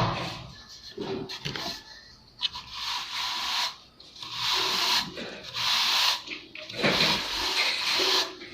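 Plastering trowel or float scraping across cement render on a brick wall in repeated strokes of about a second each, after a sharp knock at the start.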